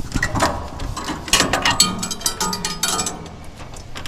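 Irregular clicking, rattling and scraping of hands working loose parts inside a heat pump's outdoor unit while the old defrost sensor is pulled out, busiest in the middle.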